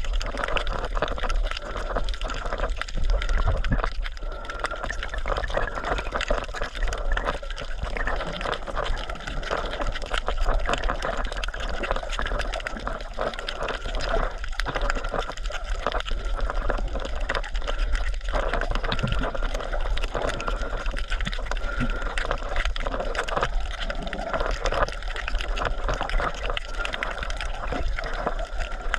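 Water sloshing and gurgling, with a dense, steady crackle of small clicks.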